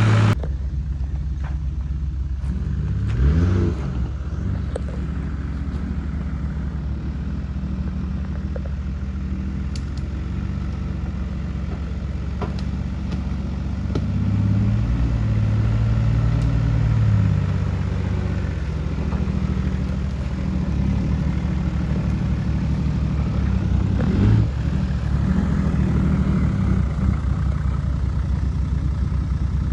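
A Toyota LandCruiser 80 series engine running at low revs as the four-wheel drive crawls in low range, a steady drone that briefly rises and falls a few seconds in and again near the end. Occasional light knocks and clatter come through over it.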